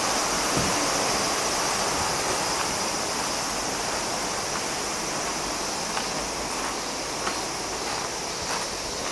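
Steady rushing of a river's flowing water, easing slightly in level, with a few faint clicks in the second half.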